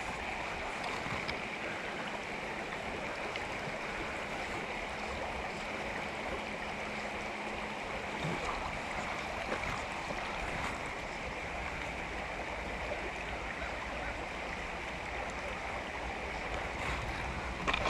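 Steady rush of a mountain river's water flowing over rocks.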